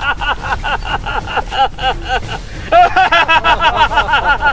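A person laughing loudly in a long run of rapid, evenly spaced 'ha' pulses, with a brief break about two and a half seconds in before it starts again louder.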